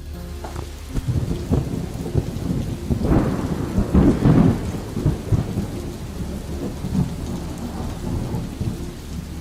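Heavy rain with a low rumble of thunder that swells about three seconds in and fades after about five.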